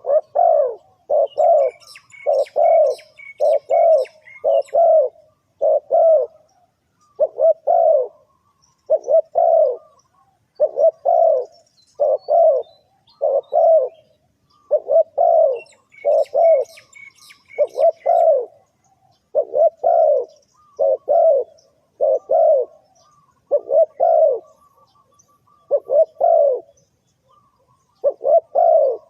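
Spotted dove cooing: a long series of short, low coo notes repeated about once a second in little runs with brief pauses between them. Faint, high twittering from a small bird comes in twice.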